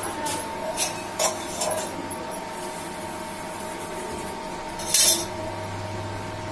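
24-volt battery-powered induction cooktop running at its 700-watt setting under an iron tawa, with a steady hum and a thin whine. A few short clinks come through, the loudest about five seconds in.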